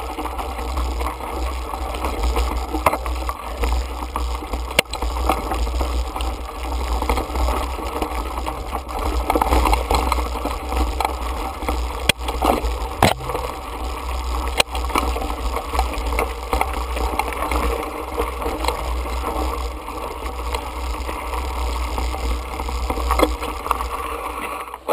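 Mountain bike ridden over rocky gravel singletrack, heard from a handlebar-mounted camera: a steady wind rumble on the microphone with tyre crunch and rattle, and several sharp knocks as the bike hits rocks.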